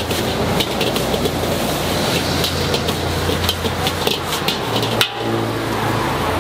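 Metal ladle clanking and scraping against a wok in quick, irregular strikes, over the steady low roar of the gas wok burner.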